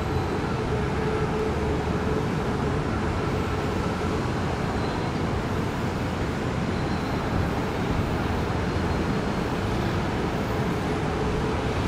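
Steady, even rumble of vehicle noise with a faint steady hum, without any distinct event.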